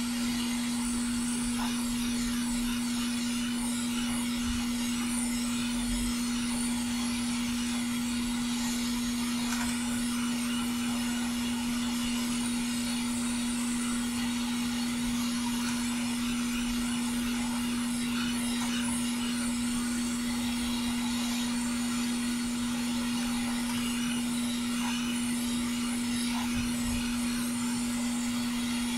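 Hot air rework station blowing steadily through its nozzle onto a surface-mount MOSFET, melting the solder to lift the part off the board. It makes an even hiss of air over a constant hum.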